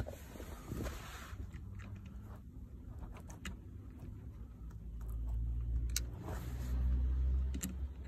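Screwdriver driving fat stainless self-tapping screws into the plastic socket around a gear lever's ball joint, giving scattered sharp clicks and creaks as the screws bite, with a low rumble from about five seconds in.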